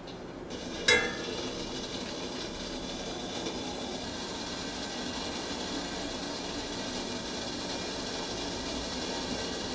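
A single sharp clink about a second in, then a pot steaming on the stove: a steady hiss that slowly grows louder.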